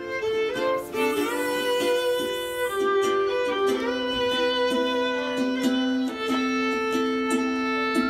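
Violin playing a slow melody of long held notes, picked up by a microphone.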